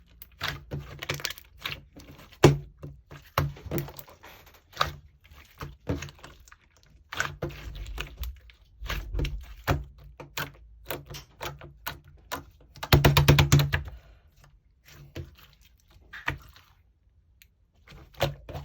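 Slime being squished and stretched by hand, giving irregular sticky clicks and little pops, with a fast run of crackling clicks about two-thirds of the way in.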